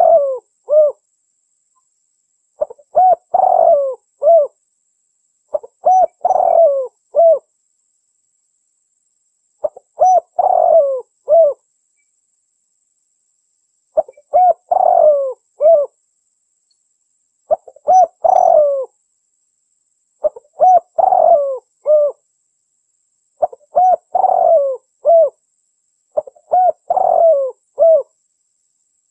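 Spotted dove song played as a hunting lure call: phrases of several mellow coos, repeated every three to four seconds with complete silence between them.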